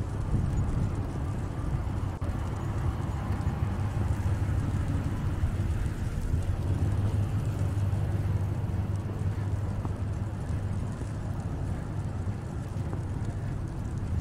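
Steady low rumble of a city street at night, swelling slightly a few seconds in and easing toward the end.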